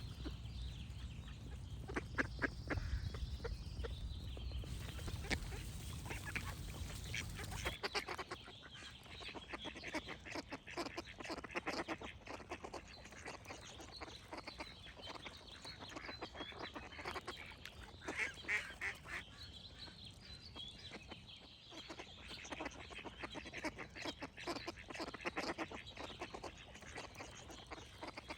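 Ducks quacking in repeated runs of quick calls. A low rumble under the first part stops suddenly about eight seconds in, where the recording changes.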